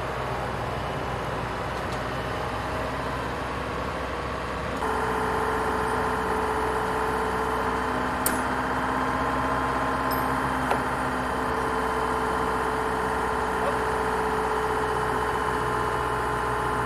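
A truck-mounted crane's engine running steadily. About five seconds in it gets louder and a steady whine comes in, with a couple of sharp clicks later on.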